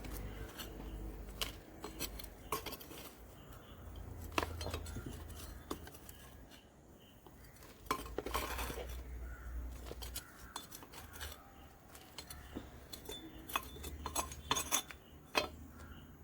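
Irregular scraping, clinks and knocks as soil is dug out of a bougainvillea's flowerpot.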